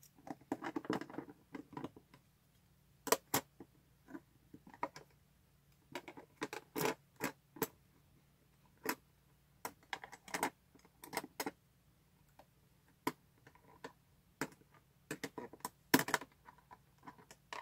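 Plastic bento lunch box and its plastic cutlery being handled and fitted together: an irregular run of light clicks and clacks, some in quick clusters, with a denser patch of handling noise in the first two seconds.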